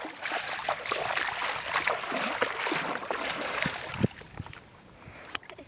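Water splashing and sloshing in the shallows at a lake's edge for about four seconds, then it quietens, with a few sharp clicks near the end.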